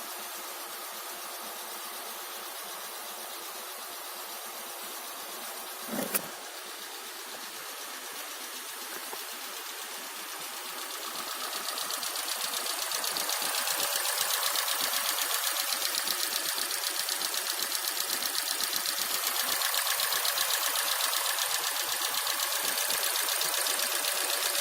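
Kia G4NA 2.0-litre four-cylinder petrol engine running after a rebuild for scored cylinders, a steady run with a fast even pulse. A sharp click comes about six seconds in, and the engine grows louder about halfway through and holds there.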